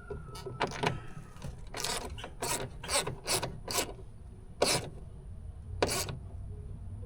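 A ratcheting mechanism worked in short rasping strokes, about ten of them, some in quick pairs, with pauses between.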